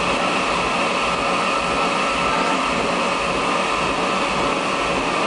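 Steady mechanical running noise with a constant whine and no changes or impacts.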